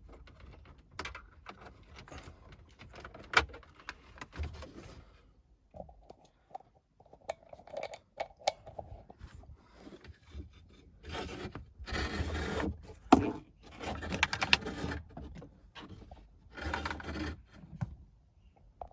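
Intermittent scraping and rustling of a speaker cable being pushed and worked behind plastic interior trim, with small clicks, loudest in a few longer scraping bursts in the second half.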